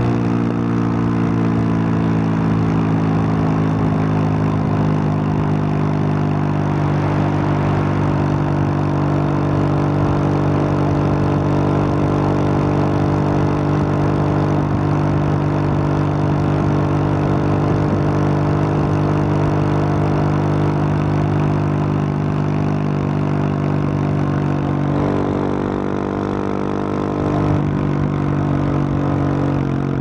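2021 Husqvarna 701 Supermoto's single-cylinder engine through a Wings aftermarket exhaust, heard on board at a steady cruise over a rush of wind and road noise. About 25 seconds in the engine note drops, then climbs again near the end.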